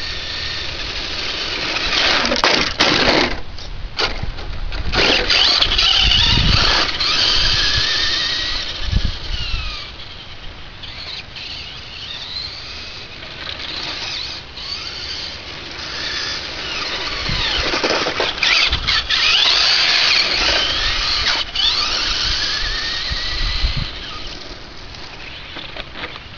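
Traxxas Slash VXL electric RC truck running hard: the whine of its brushless motor and gears climbs and falls in pitch as it speeds up and slows, over tyre noise on gritty asphalt. It is loudest for two stretches, near the start and again in the second half.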